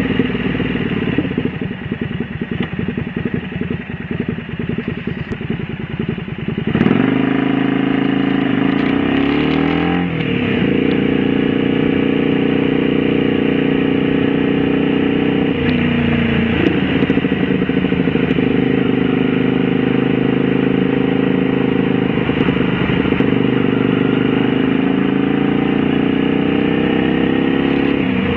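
Honda V-Twin Magna 250's 250 cc V-twin engine ticking over with a choppy beat, then pulling away about seven seconds in with the revs climbing. The pitch drops and climbs again at gear changes near ten and sixteen seconds, and the engine then runs steadily under way.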